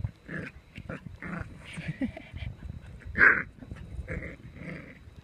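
Young puppy yapping in short bursts, about six times, while nipping playfully at a hiker's boots; one yap a little after three seconds in is the loudest.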